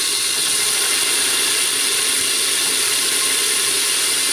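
Cubed potatoes and cumin seeds sizzling in hot oil in a pressure-cooker pan, a steady frying hiss.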